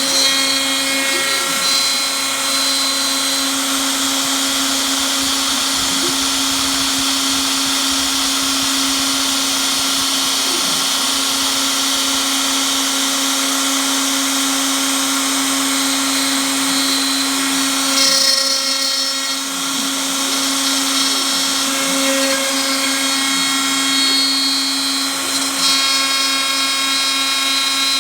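Homemade CNC router running: its spindle motor gives a steady whine, with faint short whines rising and falling every few seconds as the axes move.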